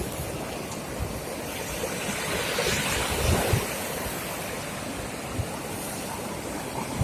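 Sea surf breaking on the beach, with wind buffeting the microphone in low rumbles. A wave rushes in louder about two to three seconds in.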